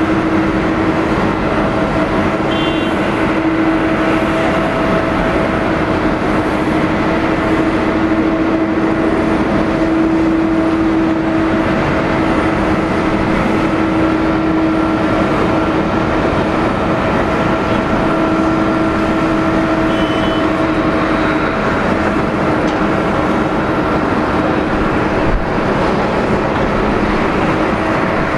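Boeing 777-200's twin turbofan engines at taxi power: a steady hum with several held tones over a broad rush.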